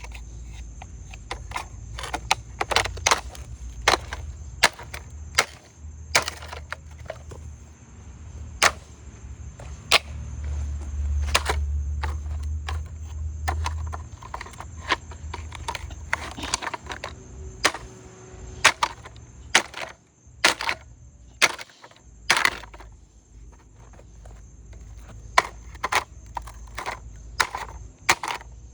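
A rock repeatedly striking a Roomba robot vacuum's plastic shell: sharp, irregular blows, roughly one a second.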